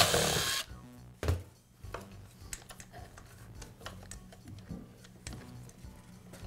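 A power screwdriver whirs briefly, backing out a screw from a power tool's motor housing. It is followed by a sharp knock and scattered light clicks as the plastic parts are handled.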